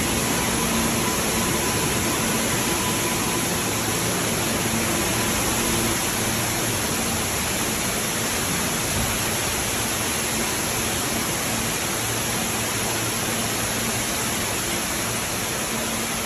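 Floodwater cascading from a subway station ceiling onto the platform and a passing train: a steady, unbroken rush of falling water.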